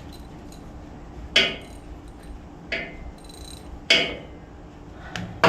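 Sharp metal clanks: three single ones a little over a second apart, each ringing briefly, then a quicker cluster near the end, as loose bolts and tools are handled while looking for a bolt that fits the starter.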